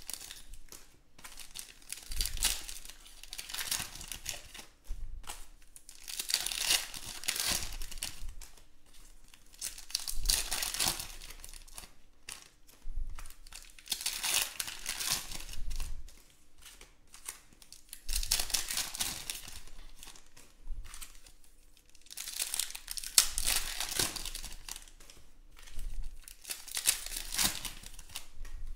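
Foil trading-card packs being torn open and crinkled by hand, in repeated bursts of crinkling a few seconds apart.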